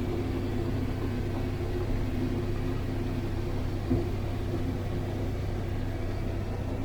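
Combine harvester shelling corn, its engine and machinery making a steady drone as heard inside the cab, with a brief bump about four seconds in.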